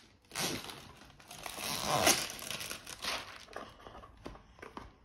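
Plastic packaging of a Barbie Color Reveal tube crinkling and rustling as it is handled and unwrapped, in irregular bursts that are loudest about two seconds in and fade to softer rustles near the end.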